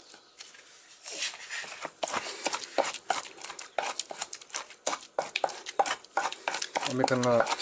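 Pestle pounding and grinding tomato, garlic and chilies in a mortar: many irregular knocks. A brief voice near the end.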